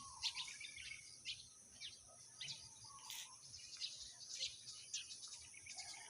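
Faint night chorus of insects: a steady high-pitched drone with many short chirps scattered throughout.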